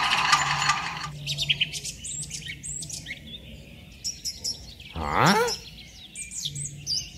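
Small birds chirping repeatedly in quick high calls. A steady noise cuts off about a second in, and a short sliding tone is heard about five seconds in.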